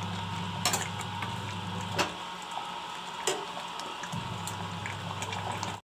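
A ladle stirring mutton curry in an aluminium pressure cooker, knocking lightly against the pot a few times, over a steady low hum.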